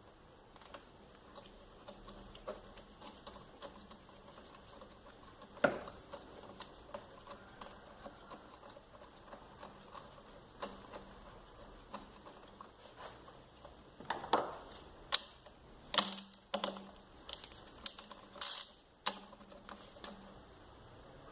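Scattered mechanical clicks and knocks, as of tools being handled: one sharp click about six seconds in, then a cluster of louder clicks and short scrapes near the end.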